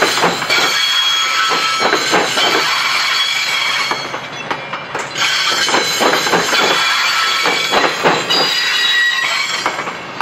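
Passenger coaches of a train rolling past, their steel wheels squealing in several thin high tones, with irregular clicks and clunks as the wheels pass over the rail joints.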